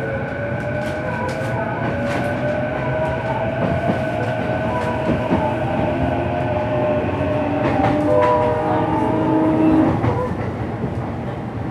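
Running sound inside a JR East E233-series motor car: the VVVF inverter and traction motors whine in several tones that slowly rise in pitch as the train gathers speed, over steady wheel-and-rail rumble with faint rail-joint clicks. The motor tones fade about ten seconds in.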